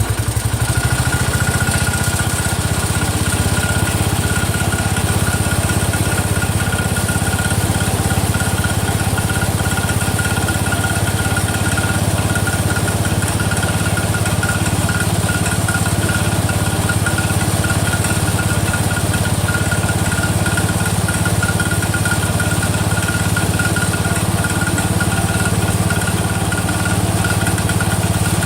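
Rebuilt single-cylinder Kohler engine of a Cub Cadet 102 garden tractor running steadily just after starting. A thin, steady high-pitched whine runs along with it.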